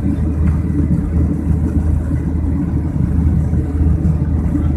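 Jet airliner cabin noise heard from a window seat: a steady, deep rumble of the engines and rushing air in flight.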